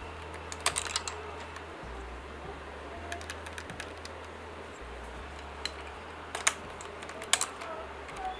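Keys being pressed on a SKYLOONG GK980+ mechanical keyboard: irregular, sharp key clicks, with a few louder clusters of strikes about a second in and near the end.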